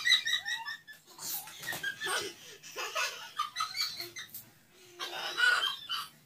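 Women laughing in several rounds of quick, high-pitched ha-ha-ha pulses, with short pauses between rounds.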